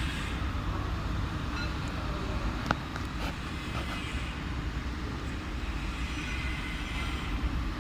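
Steady low rumble of a running engine or machinery, with a sharp click a little under three seconds in and a fainter one soon after.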